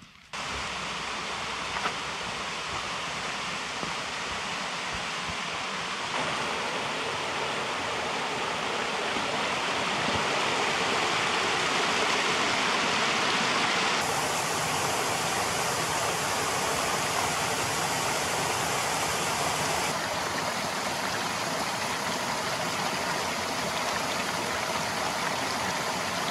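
Small waterfall spilling over a rock ledge and water rushing down a rocky stream bed, a steady splashing rush. Its tone and loudness change abruptly about 6, 14 and 20 seconds in.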